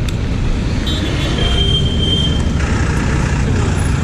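Triumph Speed 400's single-cylinder engine and exhaust running steadily under way.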